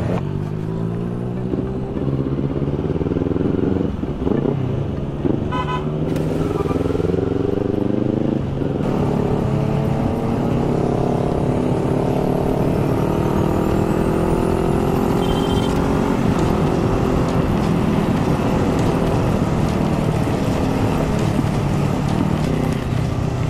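Motorcycle engine under way, climbing in pitch through the gears with shifts about four and eight seconds in, then holding a steady cruise. Under it is an even hiss of tyres on a rain-soaked road.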